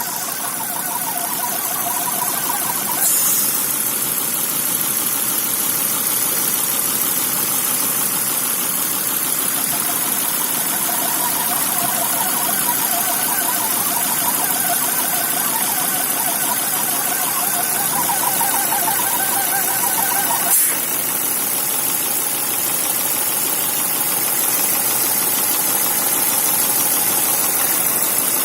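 Volvo B5244S 2.4-litre inline-five petrol engine running steadily with a whistle, a high steady tone and wavering mid-pitched tones over the engine noise. Two short sharp blips stand out, about three seconds in and again about twenty seconds in.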